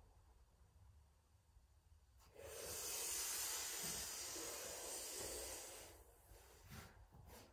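Shitali breath: a long hissing inhale, air sucked in through the rolled tongue, lasting about three and a half seconds and starting about two seconds in, as the body rises into cobra.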